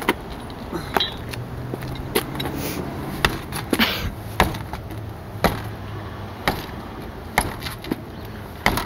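About ten sharp blows, roughly one a second, struck against a car's road wheel to knock it loose from the hub it is rusted onto.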